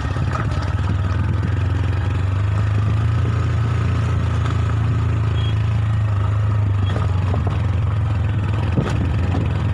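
Motorcycle engine running steadily with a low, even hum, and a single knock near the end.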